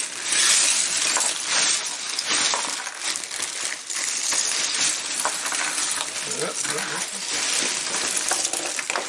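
Loose LEGO bricks and plates pouring out of a plastic bag onto a table, a continuous clatter of many small plastic pieces tumbling and sliding over each other as a hand spreads the pile.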